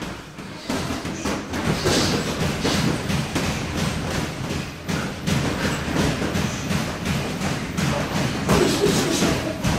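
Boxing gloves thudding in sparring, with feet shuffling on the ring canvas: irregular dull thumps, several a second, over a steady low gym hum.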